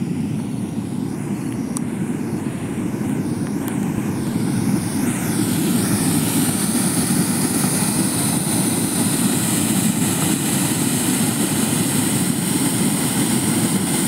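Dredged silt slurry gushing out of a discharge pipe and splashing into a stream: a steady rushing roar that grows louder about five seconds in.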